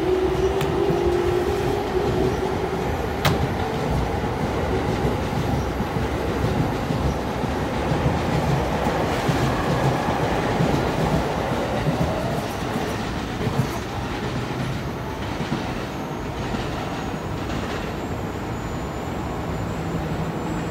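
EF65 electric locomotive standing with its air compressor running, a steady low pulsing mechanical rumble. A faint whine rises slightly and fades in the first few seconds.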